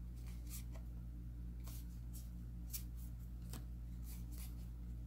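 A stack of Magic: The Gathering cards being leafed through in the hands, card slid over card: a series of faint, short swishes and flicks of card stock over a low steady hum.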